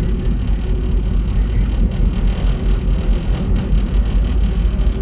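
AnsaldoBreda driverless metro train running through a tunnel, heard from inside the front car: a loud, steady low rumble of wheels on rail with running noise.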